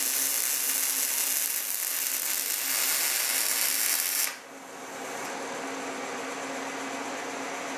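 MIG welding arc of a Boa308i borewelder running inside a small bore, short-circuit transfer with .035 wire, making a loud, steady, hissing sizzle. It cuts off suddenly about four seconds in, leaving a quieter steady hum.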